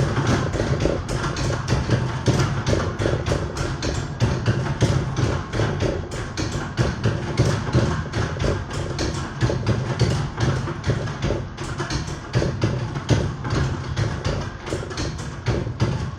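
Church tower chime bells played by hand in a Christmas carol, with a busy clatter of strikes and knocks about four times a second over a steady ringing hum.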